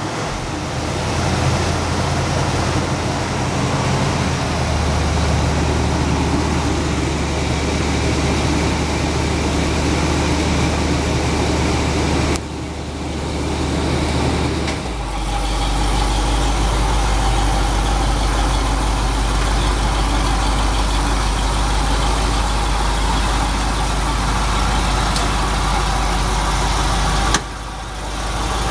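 1979 Chevrolet Corvette's small-block V8 idling steadily. Its low engine note steps down twice, about four and about fifteen seconds in.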